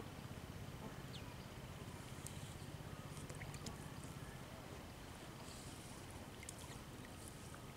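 Faint water trickling and dripping as a cast net is hauled in through shallow pond water, with scattered small clicks over a low hum that eases off about halfway through.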